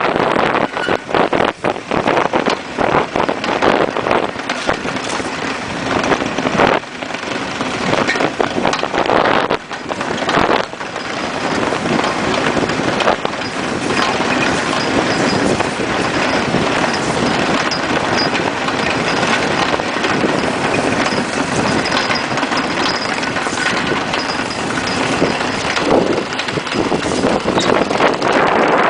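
Iceboat under sail at speed: its runners scraping over rough ice, with wind rushing over the microphone. Many knocks and rattles in the first ten seconds or so, then a steadier rush.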